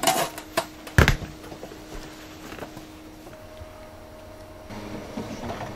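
A few sharp knocks in the first second or so, the loudest about a second in, then a faint steady hum that steps up in pitch about three seconds in.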